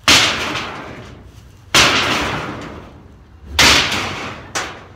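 Sledgehammer blows on the sheet-steel panels of a wrecked storage shed: three loud metal bangs nearly two seconds apart, each ringing and fading away, and a lighter knock near the end.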